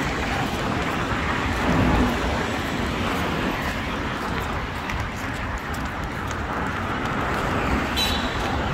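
Street traffic: cars running along a city road, a steady noisy rumble of engines and tyres. A brief high-pitched sound comes near the end.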